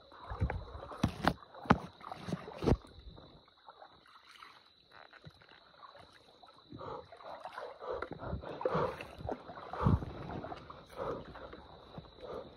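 Leaves and branches rustling and swishing as people push through bushes on foot, with scattered footsteps and knocks of the phone brushing against twigs. The loudest knocks come in the first three seconds and again about ten seconds in. A faint steady high tone runs underneath throughout.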